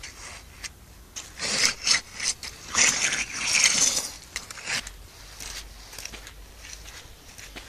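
Shoe soles scuffing and scraping back and forth in a layer of wet sand and mud on a paved path, a gritty rubbing for a few seconds, followed by quieter footsteps walking on through it.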